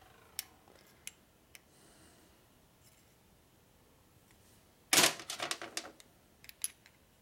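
Steel roller lifters (tappets) from a Harley-Davidson Ironhead Sportster engine clinking against each other and a micrometer as they are handled for measuring. A few light single clicks come in the first two seconds, then a quick clatter of clicks about five seconds in and two more soon after.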